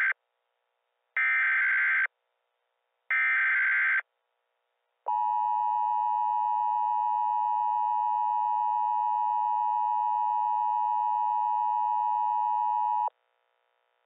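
Emergency Alert System SAME header: short bursts of warbling digital data tones about a second apart, the first ending as the sound begins and two more following. About five seconds in, the two-tone EAS attention signal (853 and 960 Hz) sounds steadily for about eight seconds, then cuts off abruptly.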